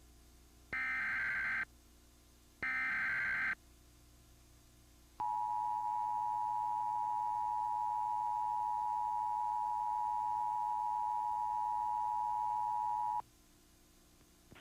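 Emergency Alert System activation: two one-second bursts of the SAME digital header's data tones, then about five seconds in the two-tone EAS attention signal, held steady for about eight seconds before it cuts off abruptly.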